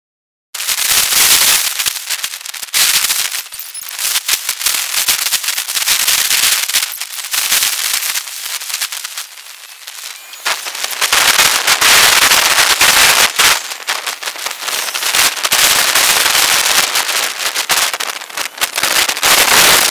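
Dust storm wind blowing over the microphone: a loud, crackling hiss full of rapid clicks that surges and eases in gusts, with a lull about nine seconds in.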